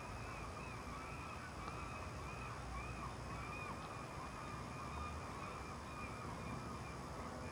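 Wheel flange squeal from a Budd Rail Diesel Car rounding a curve at low speed: a continuous high squeal that wavers in pitch, over a low rumble.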